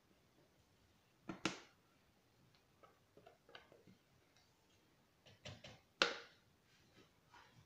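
Spatula and stainless steel mixing bowl knocking and scraping as cake batter is emptied into the mould: sharp clicks and knocks, loudest around a second and a half in and again around six seconds in, with faint ticks between.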